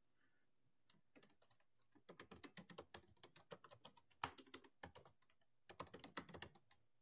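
Faint computer keyboard typing: quick key clicks in several short runs, starting about two seconds in, as a short phrase is typed.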